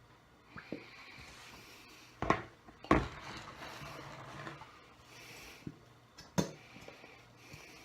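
A few sharp knocks and taps against a mixing bowl, the loudest pair about two and a half to three seconds in and another near the end, with quiet handling between them.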